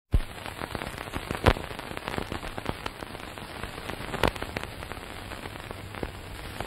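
Steady crackling hiss full of fine clicks, with a few sharp knocks, the clearest about a second and a half in and just past four seconds.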